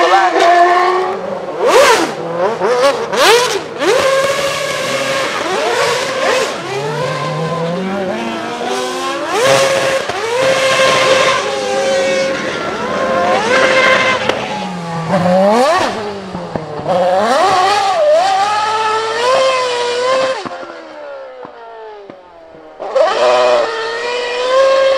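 Formula 1 car's high-revving V8 engine held at high revs and blipped up and down during donuts, with tyre squeal in the first few seconds. The revs fall and rise repeatedly, and near the end a car's engine revs up hard again after a quieter stretch.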